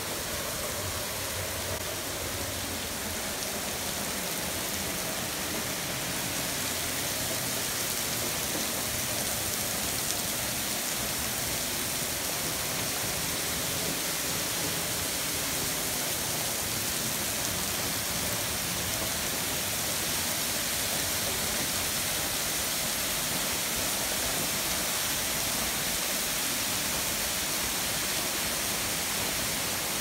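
Steinsdalsfossen, a 50 m waterfall, heard from the path behind its falling curtain: a steady rushing hiss of falling water and spray, growing a little louder after the first few seconds.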